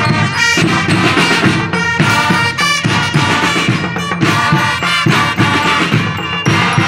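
School band of brass and drums playing a loud, lively tune in short, punchy phrases.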